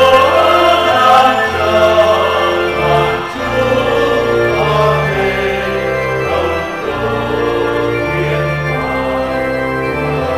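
Hymn accompaniment on organ: slow, held chords that change every second or so over a stepping bass line.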